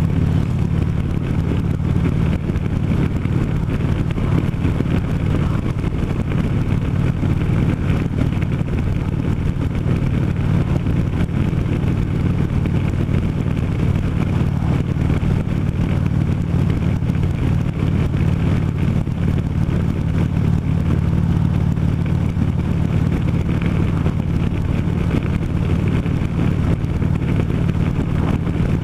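Harley-Davidson V-twin motorcycle engine running at a steady cruise, its low drone unchanging, with no revving or gear changes.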